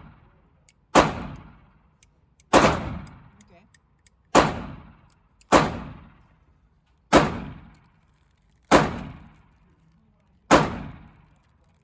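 Seven single gunshots fired one at a time at a steady, deliberate pace, about one every one and a half seconds, each with an echoing tail.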